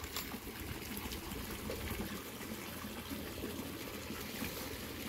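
Steady splashing and trickling of water at a pond's edge.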